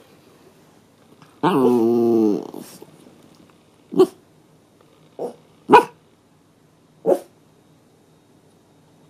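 Bichon Frise barking: one long drawn-out bark or howl about a second and a half in, then four short barks spread over the next few seconds. The dog is reacting to the fire-alarm test announcements in the building.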